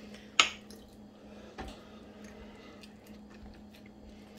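Raw chicken chunks squished down into a glass mason jar by hand, packed tight to press out air pockets for raw-pack canning. A sharp click about half a second in and a smaller one about a second later, over a steady low hum.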